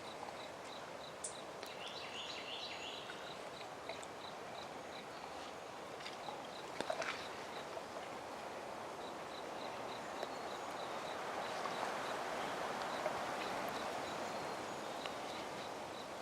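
Quiet woodland ambience: a steady rushing haze that swells for a few seconds past the middle, with a faint high chirp repeating about three times a second, likely an insect, and a few small clicks.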